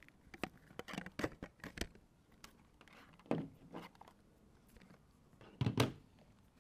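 Handling noise from unplugging and plugging in model-turbine control wiring: a quick run of small plastic clicks and knocks in the first two seconds, a few single knocks after, and one louder knock near the end.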